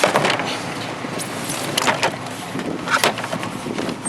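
A few short knocks and clatters as a picture frame with metal corner pieces is handled, over a steady background noise of the kind heard outdoors near traffic.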